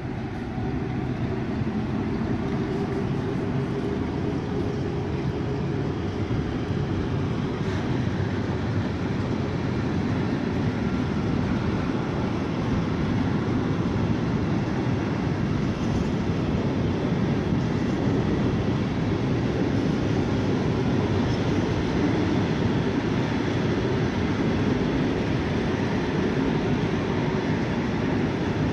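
Class 182 electric locomotive hauling a long freight train of tank wagons passes close by, followed by the wagons rolling past: a steady rumble of steel wheels on the rails, growing a little louder in the first second.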